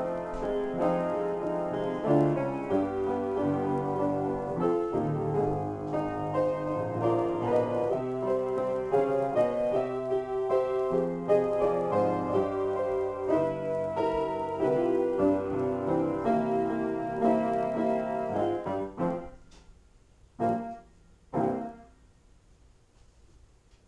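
Solo piano improvisation, a continuous flow of chords and runs that winds down and stops about three-quarters of the way through, followed by two short, separate sounds.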